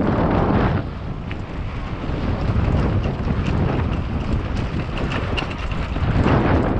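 Downhill mountain bike rolling fast over a rough dirt trail: tyres crunching on dirt and roots and the bike rattling over bumps, with wind buffeting the camera microphone.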